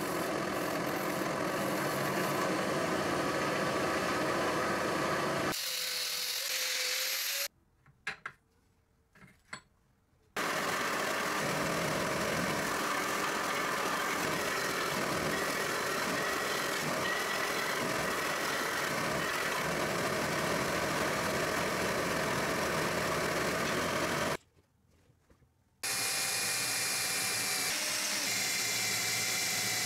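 Electric power tool running on metal workpieces in several separate stretches, broken by two short near-silent gaps with a few light clicks.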